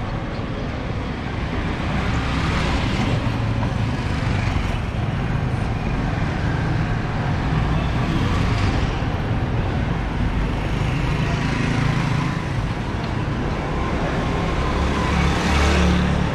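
Steady road traffic with a low engine rumble, swelling a few times as vehicles pass.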